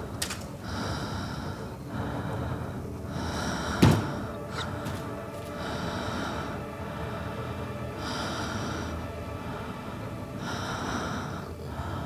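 Slow, heavy breathing, one breath about every two and a half seconds. A single sharp click cuts in just under four seconds in.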